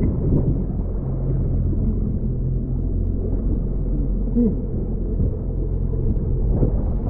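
A fishing boat's engine running with a steady low drone, with faint voices over it.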